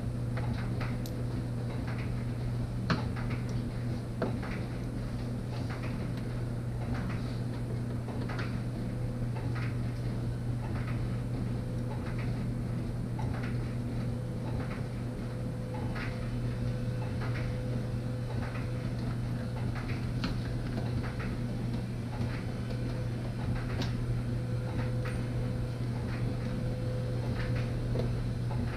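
Irregular light clicks and taps of a hand tool working the bolts on the plastic inner fender panel of a Corvette's wheel well, over a steady low hum.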